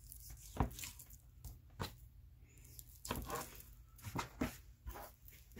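Butcher knife trimming fat off a bone-in bear roast on a plastic cutting board: soft cutting and handling of the meat, with scattered light knocks of blade and meat on the board.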